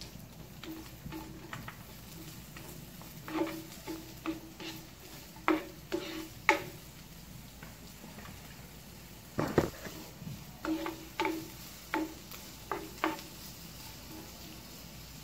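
Spatula clacking and scraping against a nonstick frying pan as sliced onion and garlic are stirred, with a faint sizzle underneath. The clacks come irregularly, in clusters, with a heavier thump about nine and a half seconds in.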